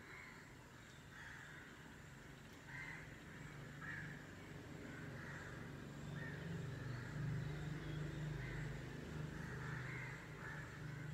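Faint bird calls outside, short calls repeating irregularly about once a second, over a low hum that grows louder about halfway through.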